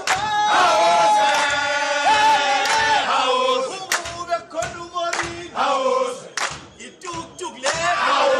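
Orlando Pirates footballers, a group of men's voices, singing together unaccompanied with long held notes, and sharp hits keeping time through the middle of the song.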